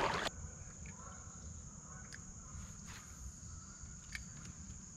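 Insects buzzing in a steady high-pitched drone over faint, quiet river ambience. A brief paddle splash sounds at the very start, and a few faint ticks follow later.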